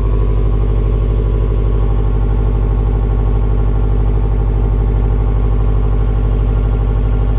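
Subaru STI's turbocharged flat-four boxer engine idling steadily on its stock exhaust after a cold start.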